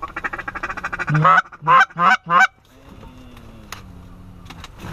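Goose honking: a fast run of short clucks, then four loud honks about a second and a half in, followed by a fainter long, falling moan.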